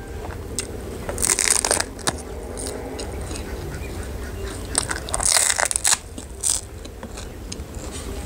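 Crunching bites into a crisp fried chip: two loud crackly crunches, about a second in and again about five seconds in, with a short crunch just after the second.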